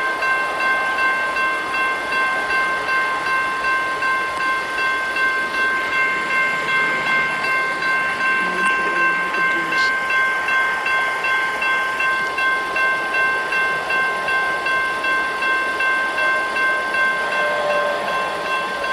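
Railroad crossing warning bell ringing steadily while the signals flash. Underneath it runs an even rush of noise from the double-stack intermodal train at the crossing.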